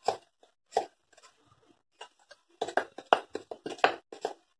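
Fork beating butter and sugar in a glass mixing bowl, clicking against the glass: a couple of single clicks, then a quick run of clicks about two and a half seconds in.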